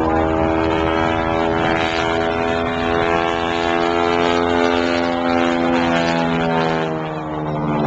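Propeller airplane engine droning steadily overhead, its pitch drifting slowly lower with a shift near the end.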